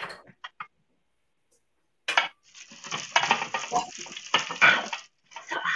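Metal roasting pan scraping and clattering as roasted baby red potatoes are tipped and scraped out of it into a bowl. A sharp knock about two seconds in, then about three seconds of scraping with many small knocks.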